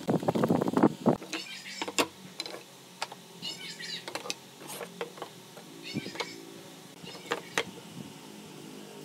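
Wooden stick stirring and scraping a thick sawdust-and-glue paste in a plastic tub, rapid strokes for about a second. Then a few sharp knocks of pine boards on a wooden workbench, with short high chirping calls in the background.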